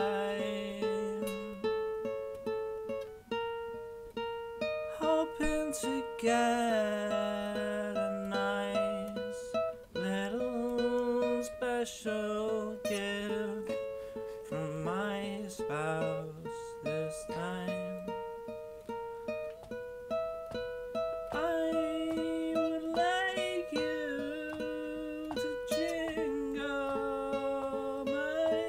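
Acoustic guitar played in steady plucked chords while a man sings over it, with short instrumental gaps between sung lines.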